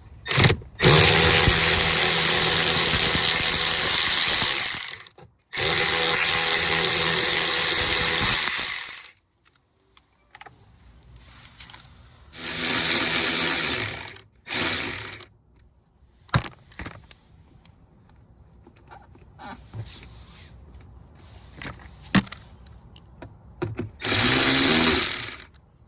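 Power driver spinning a 7 mm socket on a long extension to back out a long door-panel screw, in several runs: two long ones of about four seconds near the start, shorter ones in the middle and one near the end, with small clicks of handling between.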